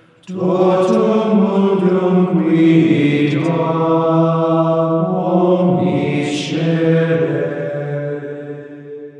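Small group of male monks chanting together without accompaniment, sustained phrases with short breaks between them, fading out near the end.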